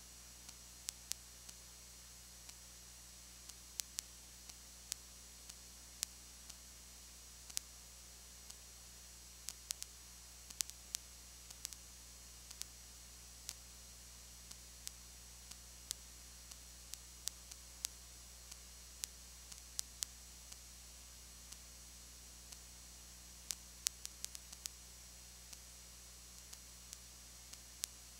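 Steady hiss and low hum from the recording itself, with irregular sharp clicks, a few of them every second or two. No sound of the game is heard.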